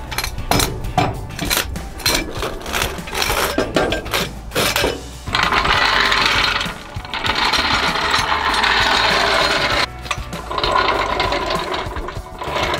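Metal clanks and ratcheting clicks as steel jack stands and a hydraulic floor jack are set under a travel trailer. About five seconds in, a steady rattling mechanical noise starts and runs for about four seconds, then comes back briefly.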